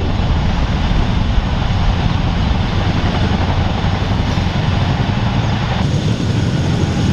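Loud, steady rotor chop and engine noise from a large military heavy-lift helicopter running close by.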